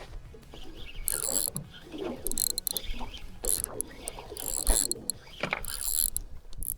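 Spinning fishing reel being wound in, its gears whirring in repeated turns of about a second each with short pauses between. A steady low rumble runs underneath.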